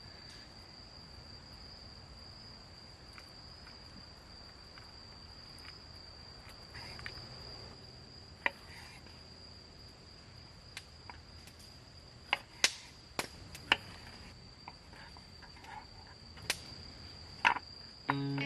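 Crickets chirping steadily in a continuous high-pitched chorus, with a scattering of sharp clicks and taps, most of them in the second half.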